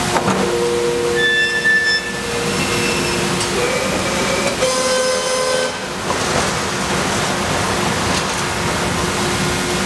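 Trumpf L3030 laser cutter's pallet changer running: the slatted cutting pallet rolls along its rails over a steady machine hum. Whining tones come and go twice.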